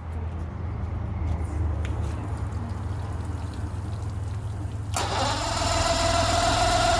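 Mercury 135 V6 two-stroke outboard starting and running steadily, cooled by a garden hose on its water intake, as a test run after a new water-pump impeller. About five seconds in, a louder hissing sound joins it.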